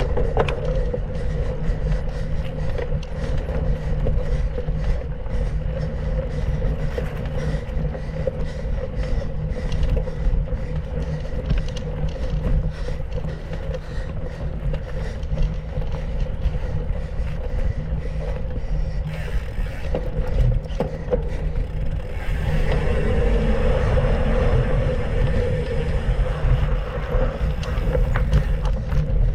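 Mountain bike ridden over a dirt trail: steady wind rumble on the microphone, with frequent rattles and knocks from the bike over bumps. It grows louder about two-thirds of the way through.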